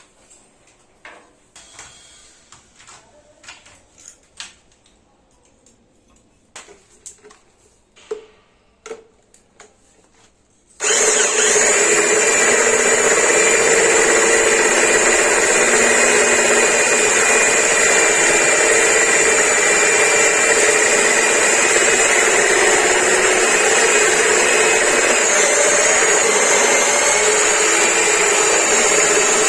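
Light clicks and knocks of tools being handled, then, about a third of the way in, an electric drill fitted with a hole saw cutter starts suddenly and runs loud and steady with a constant whine while it cuts a hole in a metal gland plate.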